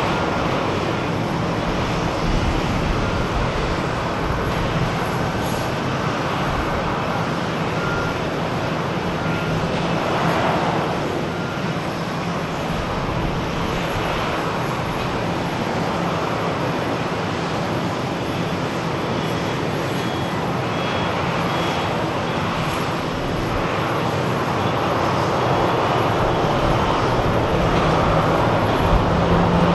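Boeing 737-800's CFM56 turbofan engines running steadily at low taxi power, an even jet noise with faint high tones coming and going.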